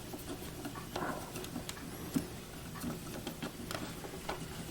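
Phillips screwdriver working a screw out of a counterfeit detector's case: scattered light clicks and small knocks at an uneven pace.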